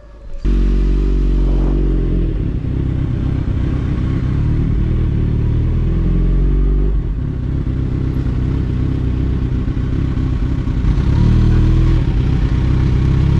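Kawasaki Ninja motorcycle engine running at low revs while the bike rolls slowly, starting suddenly and getting a little louder near the end.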